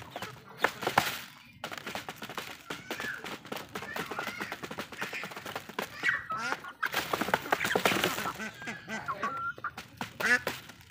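Chickens pecking rice off the bottom of a cardboard box, beaks tapping rapidly on the cardboard, with several short wavering clucks and calls among them.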